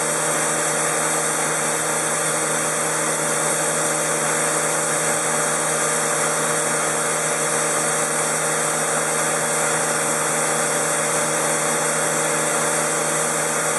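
Shoda CNC router's high-speed spindle running with a steady whine while trimming a pressure-formed plastic part.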